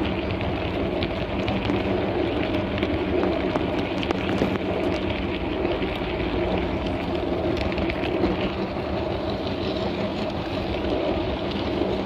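Garden-scale model train running along its track: a steady mechanical hum with rattling and scattered clicks from the wheels on the rails.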